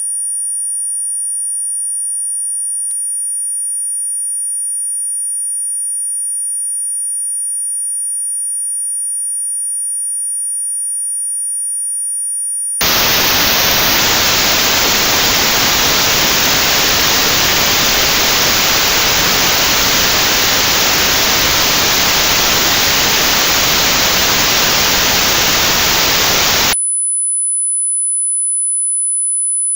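Tinnitus test sounds. First a steady, high-pitched pure test tone, with fainter steady tones beside it. About 13 seconds in, loud white noise starts, with a band just above 8 kHz notched out: notched white noise for tinnitus sound therapy. It runs about 14 seconds and cuts off suddenly to a single steady high tone.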